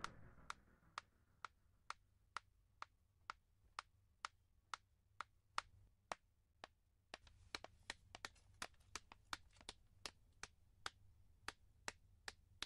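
High-heeled shoes clicking on a hard floor, one person's footsteps at a steady two or so steps a second. About seven seconds in, a second set of steps joins in and the clicks overlap.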